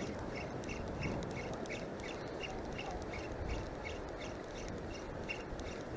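Spinning reel being cranked to wind in the line, giving a soft, regular ticking about four times a second over a steady wash of wind and water noise.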